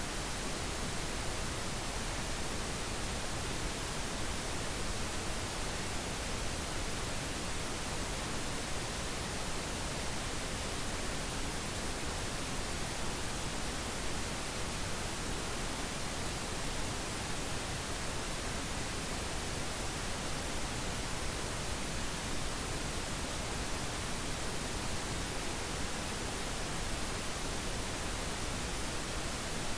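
Steady pink noise: an even, unchanging hiss spread across the whole range of pitches, with no tones or events in it.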